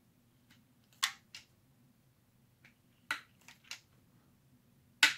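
Quick-ratcheting bar clamp clicking as its trigger handle is squeezed in short strokes, pressing a brass threaded insert into a 3D-printed plastic part. Sharp separate clicks in small groups, about six in all, the loudest near the end.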